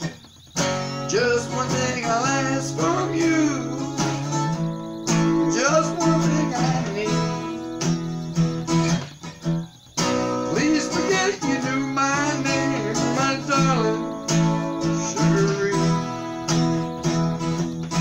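Acoustic guitar strummed and picked in chords, with a melody line bending up and down in pitch over them. The playing drops away briefly just after the start and again about halfway through.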